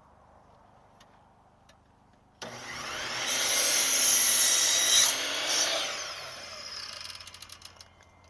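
An electric power saw starts up about two and a half seconds in and cuts through a 2x6 board, loudest partway through the cut. It then winds down, its whine falling and fading away near the end.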